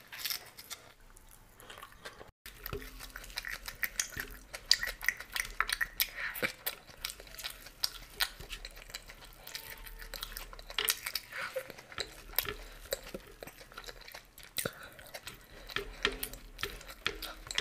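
Close-miked chewing and wet mouth sounds of someone eating with her fingers: dense crackly smacks and clicks, with fingers breaking a fried kachori and picking food off the plate. Fainter for the first couple of seconds.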